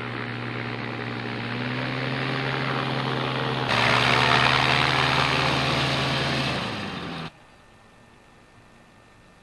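Ultralight aircraft engine and propeller running with a steady drone. About four seconds in it becomes much louder and closer, with a rushing wash of noise. Near the end the engine note drops as it is throttled back, then the sound cuts off suddenly, leaving only faint tape hiss.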